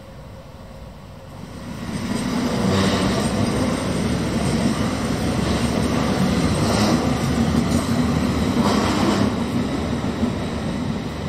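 Passenger train running through the station: a steady rumble of wheels on rails that builds up about two seconds in, with a few brief louder swells.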